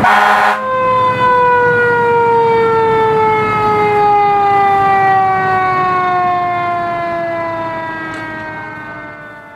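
A fire engine siren winding down: after a brief loud blast at the start, one long tone falls slowly in pitch and fades out near the end.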